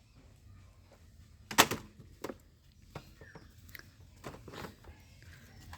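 A few scattered light clicks and knocks over a faint background, the loudest a sharp click about a second and a half in.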